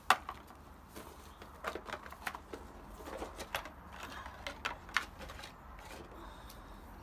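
Short clicks and taps of plastic parts being handled as the jump starter pack and its clamp leads are taken out: one sharp click just after the start, then a scatter of quieter clicks over the next few seconds.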